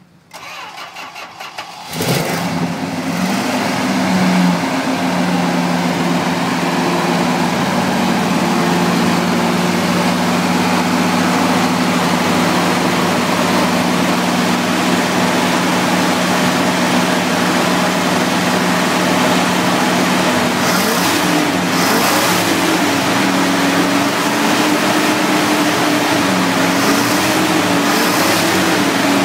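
1966 Chrysler 300's 383 cubic inch big-block V8 cranking briefly and catching about two seconds in, with a short rise in revs, then idling steadily. From about 21 seconds in, the engine note rises and falls with light throttle blips.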